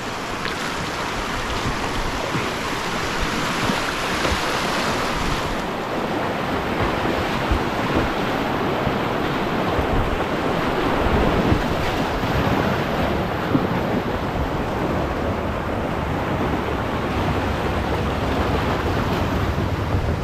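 Whitewater rapids rushing steadily around a kayak running through them.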